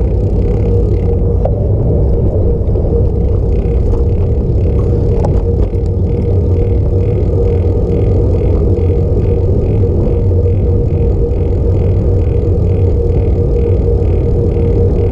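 Wind buffeting the microphone of a bicycle-mounted camera while riding, with road rumble from the bike rolling on asphalt. A faint high chirp repeats about two or three times a second through most of it.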